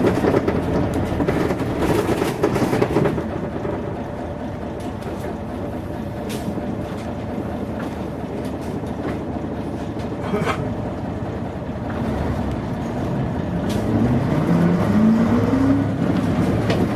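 The diesel engine of a 1989 Mitsubishi P-MP218M Aero Star K bus, heard from inside the cabin. It runs loud for the first few seconds, then drops to a quieter note. From about two-thirds of the way in it pulls away again with a rising engine note, and there is a gear change near the end.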